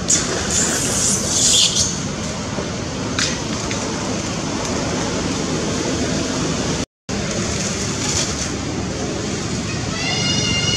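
Steady rush of flowing water, with splashing in the first two seconds and a moment where the sound cuts out about seven seconds in. Near the end a macaque gives a high, drawn-out squeal.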